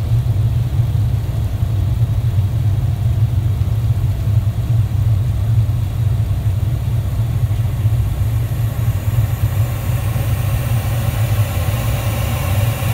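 Cockpit noise of a Dassault Falcon 7X in flight on approach: a steady low rumble of air and engines, with a hiss that grows louder in the second half.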